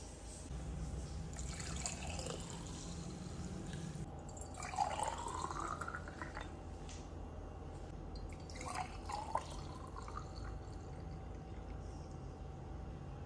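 Ginger lemon water poured from a plastic measuring jug into glass jars, the stream splashing into the liquid. The pitch rises as a jar fills, most clearly about five seconds in.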